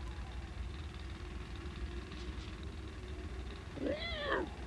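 A low steady hum, then, near the end, a short arching squeal like a pig's, rising and falling in pitch.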